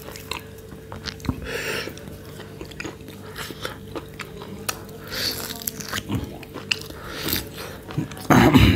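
Close-up chewing and biting of roasted goat rib meat, with many small clicks and wet mouth noises. A louder mouth sound comes near the end.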